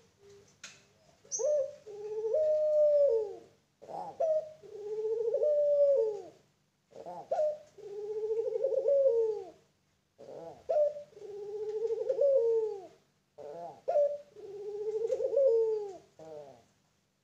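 Young puter pelung, a Barbary dove bred for its long coo, cooing in its cage: five calls about three seconds apart, each a short opening note followed by a long wavering coo that falls away at the end.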